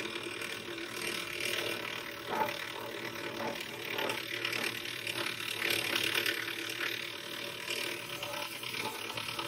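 Hand frame saw cutting through a block of wood with quick back-and-forth rasping strokes, its blade working from a drilled starting hole along a pattern line.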